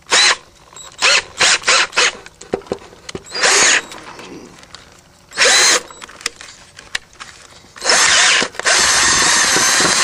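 Cordless drill with a 5/32-inch bit enlarging a hole in a heat pump's sheet-metal panel. It runs in several short trigger bursts, the motor spinning up each time, then a steadier run of about two seconds near the end.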